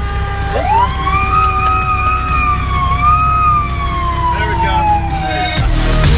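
Fire engine siren wound up once: its wail rises steeply about half a second in, holds, then slowly winds down over several seconds, over the truck's steady engine rumble.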